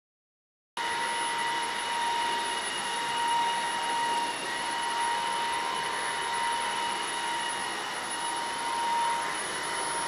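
Tesvor R5 cordless wet-dry floor scrubber running steadily: an even motor whine with a few fixed tones over a hiss of suction. It cuts in suddenly about a second in.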